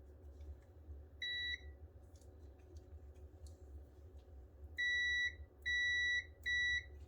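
Digital multimeter's continuity beeper sounding four times in ohms/continuity mode: one short steady beep about a second in, then three in quick succession near the end. Each beep signals a closed circuit between the probes.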